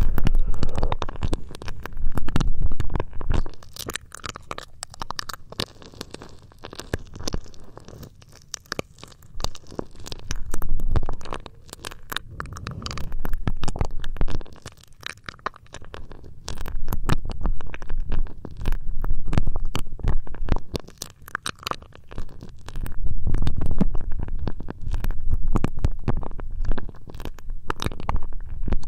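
Ear rubbing on a close ear-shaped microphone: dense scratchy, rumbling friction that swells and fades in slow waves every few seconds.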